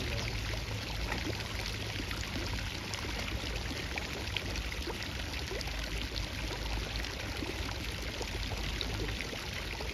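Steady rush of running water, with a low rumble underneath.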